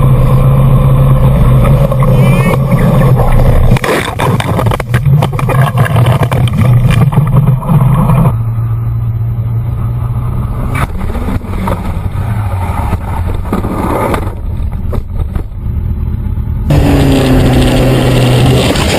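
Motorcycle engines running on the road, cut from clip to clip, with wind noise on the microphone. A few seconds in there is a run of knocks, clatter and scraping as a bike goes down. Near the end a Honda CBR sport bike's engine runs steadily and rises in pitch.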